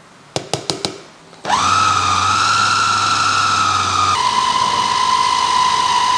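A few quick clicks, then an electric food chopper's motor starts up with a rising whine and runs steadily at speed, churning meatball paste with tapioca flour; its pitch steps down a little about two-thirds of the way through.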